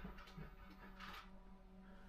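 Near silence: a steady low hum with a few faint clicks and a short faint rustle about a second in.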